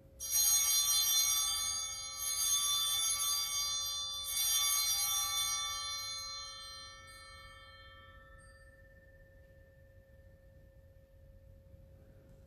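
Altar bells rung three times at the elevation of the host, about two seconds apart. Each ring is a bright cluster of high tones that dies away slowly.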